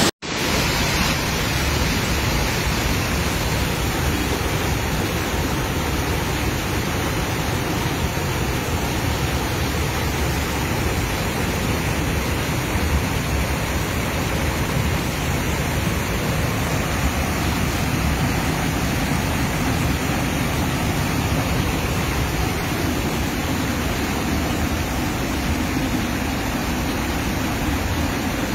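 Steady rushing of fast-flowing muddy floodwater, an even, unbroken noise.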